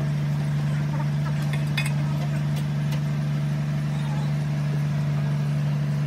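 Steady low machine drone, like an engine running nearby, with a few light metallic clinks from work on a steel gear assembly.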